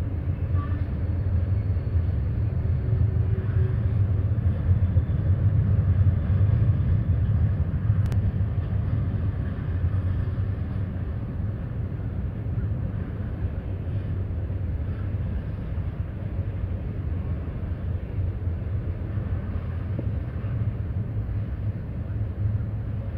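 Freight train rolling past: a steady low rumble that swells a little a few seconds in, then settles.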